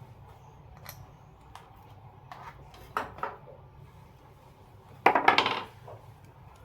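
Metal parts and tools clinking and rattling as a ceiling fan is taken apart: a few light clicks, two sharper clinks about three seconds in, and a louder burst of clattering about five seconds in.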